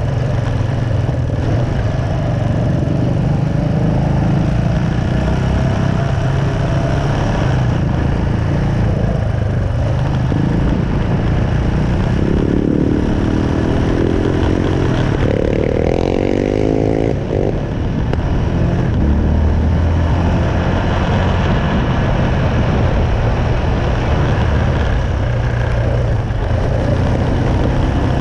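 Yamaha Raptor 700 quad's single-cylinder four-stroke engine running as it is ridden along a dirt trail, the revs rising and falling, with a climbing stretch about halfway through.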